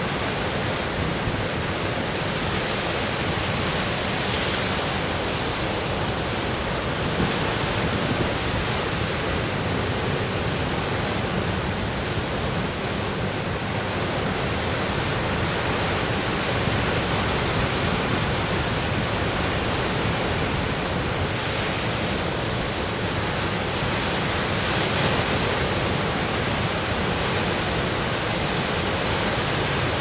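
Big storm waves on Lake Superior breaking continuously, a dense, steady wash of surf that swells slightly now and then.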